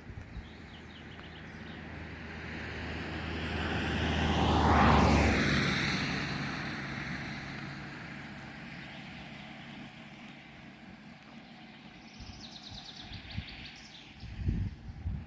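A motor vehicle driving past: its engine and tyre noise grows louder, peaks about five seconds in and fades away, with the pitch dropping as it passes. A bird trills briefly near the end.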